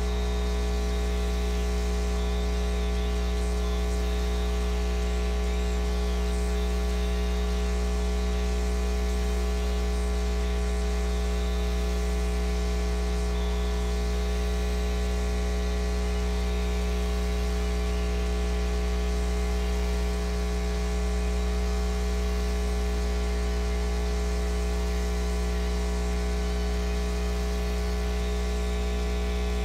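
Steady electrical hum, a low mains-type hum with a stack of overtones, over a layer of hiss.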